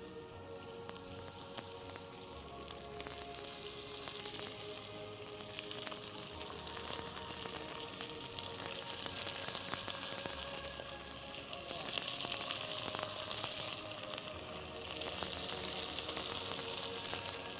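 Raw bone-in meat sizzling as the pieces are dropped into hot oil and browned onions in a pot, the frying hiss swelling louder in several spells.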